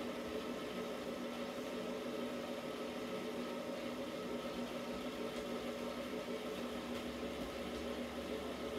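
Electric stand mixer's motor running at a steady speed, a constant hum, with the dough hook turning through a small, loose batch of pizza dough in the steel bowl.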